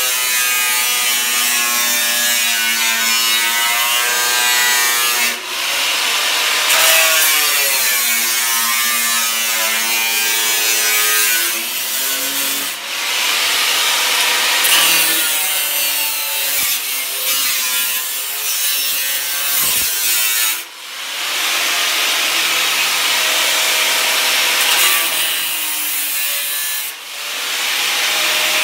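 Angle grinder with a cut-off wheel cutting through sheet steel. The motor's pitch shifts under load, and the level dips briefly four times.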